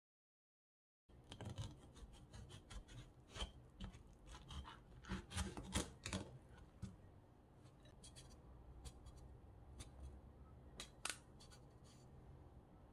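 A kitchen knife cutting through a netted melon and knocking on a plastic cutting board. Crisp crunching cuts and sharp clicks start about a second in and are loudest a few seconds later, then fade to quieter scraping as the knife pares the rind from a slice.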